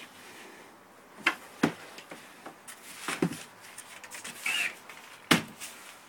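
Painted canvases on wooden stretchers being taken down and set up by hand: several separate knocks and bumps of the frames, the loudest near the end, with faint rustling and a short squeak about four and a half seconds in.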